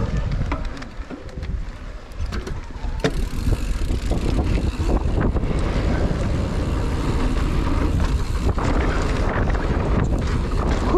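Mountain bike riding a dirt trail: steady wind rush on the microphone with rattling tyre and frame noise, and a few sharp knocks from the bike.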